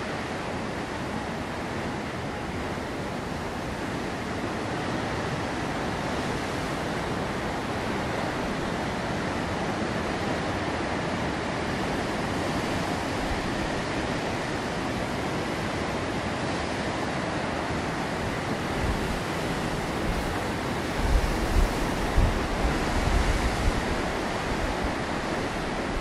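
Rough sea surf breaking over the rocks below in a steady, continuous rush. Near the end, wind gusts buffet the microphone with low rumbling thumps.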